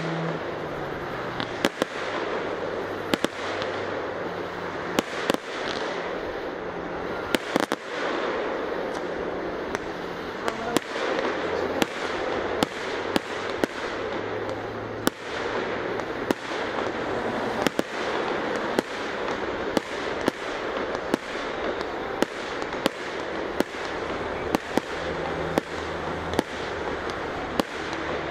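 Fireworks display: aerial shells bursting one after another, sharp bangs about one or two a second over a steady background noise.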